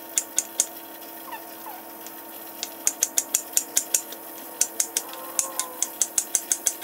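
Chef's knife slicing an onion on a wooden cutting board: crisp knocks of the blade through the onion onto the wood, a few spaced strokes at first, then quick runs of about five a second with short pauses.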